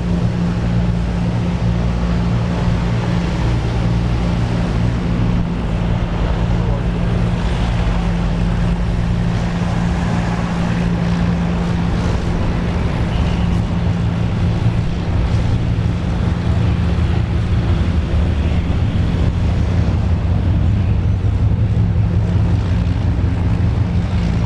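Twin piston engines of a light twin-engine propeller aircraft running at taxi power: a steady drone with a low propeller hum, its lowest tone growing stronger in the second half.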